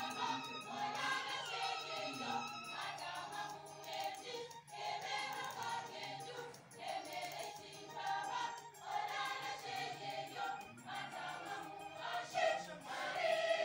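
Background music with choral singing.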